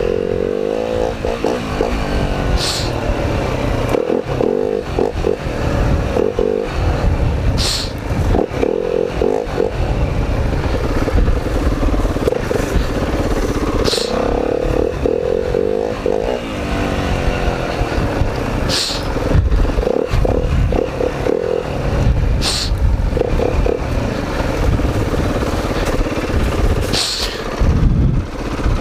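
Four-stroke dirt bike engine revving up and dropping back again and again as the bike is ridden along a rough trail, with clatter over the ground. Six brief high-pitched squeaks come a few seconds apart.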